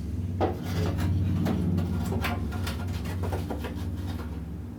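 A snowblower's belt cover being pushed back into place: a low rubbing drone, stronger in the first couple of seconds, with several light clicks and knocks as it seats.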